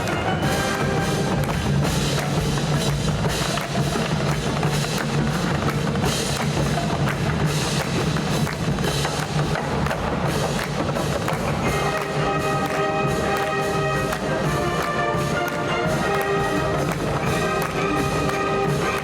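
Marching wind band playing, drums and percussion driving a steady beat, with sustained brass chords coming in about two-thirds of the way through.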